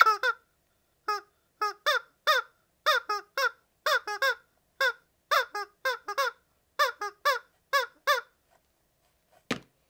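Tiny rubber screaming-chicken toy squeezed over and over: a string of short, pitched squawks, two or three a second, stopping about eight seconds in. A single sharp click near the end.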